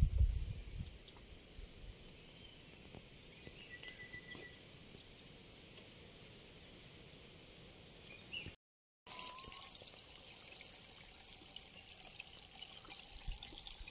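Outdoor ambience of a steady high-pitched insect drone over a faint hiss, with a low thump at the very start. The sound drops out completely for a moment about two-thirds of the way through.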